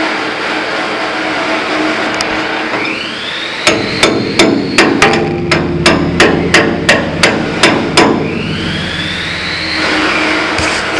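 Hammer blows on steel, driving out the remaining half of a broken roll-out bucket cylinder pin: a quick run of about fifteen sharp strikes, roughly four a second, starting about 4 s in and stopping about 8 s in. A steady machine noise runs underneath.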